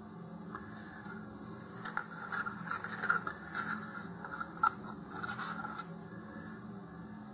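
Wooden stir stick scraping the last of the epoxy out of a paper cup: a run of short scratchy strokes for about four seconds, with a sharp tick near the end.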